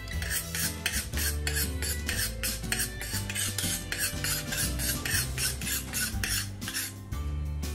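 Carving knife being honed on a sharpening steel: quick repeated metal-on-metal scraping strokes, several a second, over background music.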